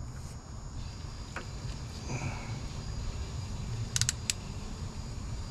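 Hand crimping tool worked on a blue butt connector and wire ends: quiet handling with a faint tick about a second in, then three quick, sharp clicks about four seconds in, over a low, steady background rumble.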